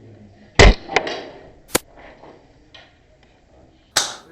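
Spring-powered bolt-action airsoft sniper rifle firing a shot with a sharp thump, followed by two clicks of the bolt being worked back and forward. Another sharp knock near the end.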